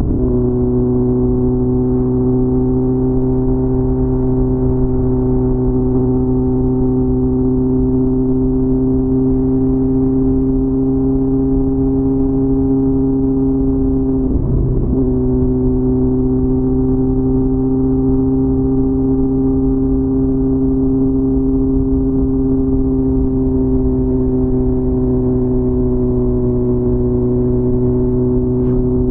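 Yamaha XJR1300's inline-four engine with aftermarket Viper exhausts, running at a steady engine speed with an even, constant pitch. About halfway through the note briefly wavers and dips, then settles back to the same steady speed.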